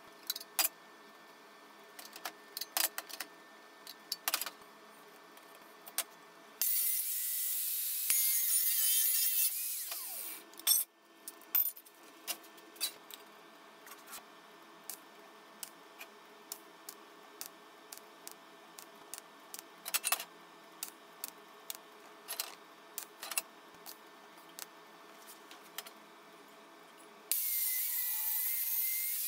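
Metal clinks and knocks of steel parts handled on a steel welding table, with a few seconds of angle-grinder-like grinding about seven seconds in. Near the end a Bosch angle grinder starts cutting into square steel tube, a high whine over a steady grinding hiss.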